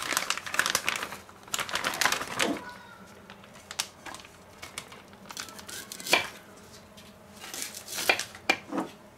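Plastic bag crinkling as it is handled and pulled away from a steel bowl, dense for the first two and a half seconds, then scattered short taps of a knife slicing onion on a wooden cutting board.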